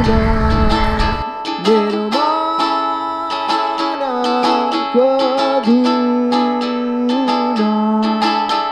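A man singing held, gliding notes while strumming a ukulele, the plucked chords coming at a steady pace. A low rumble sits under the first second or so and stops abruptly.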